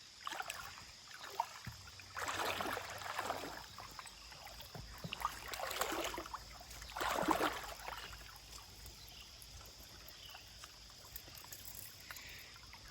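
Shallow creek water sloshing in a few separate swishing surges as legs wade through it, over a faint steady stream background.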